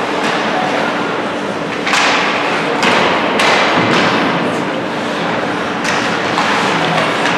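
Ice hockey play in a rink: sharp, echoing knocks about two, three, three and a half and six seconds in, over a steady wash of rink noise.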